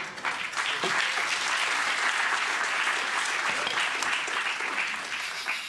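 Sesame-soy sauce sizzling and bubbling as it hits the hot pot of noodles, vegetables and chicken: a steady hiss with fine crackles.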